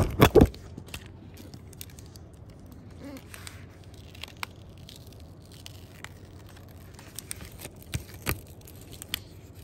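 Printable vinyl sticker sheet being peeled off a sticky Cricut cutting mat: faint crackling and ripping as the adhesive lets go, with scattered small clicks. It opens with a couple of knocks.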